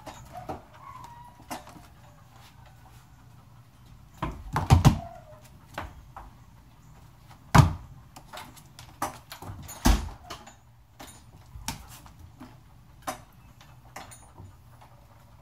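Front door being worked: scattered clicks and rattles of the handle and latch, with a few louder knocks and thumps of the door about a third of the way in, at the middle and about two-thirds in.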